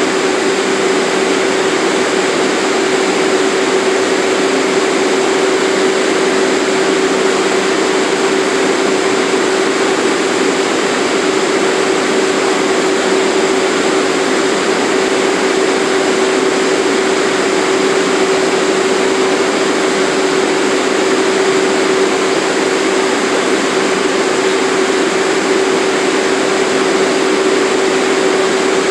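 Subway car standing in the station with its doors open, its air-conditioning and on-board equipment running: a steady rushing noise with one constant hum tone.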